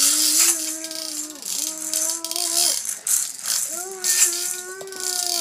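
A plastic toy car rattling continually as a baby shakes and bangs it. Over it come several long drawn-out vocal sounds, each held for about a second.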